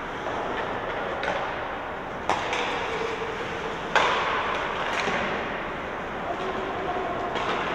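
Ice hockey play in a rink: sharp knocks of puck and sticks over a steady arena background, with two loud cracks about two and four seconds in.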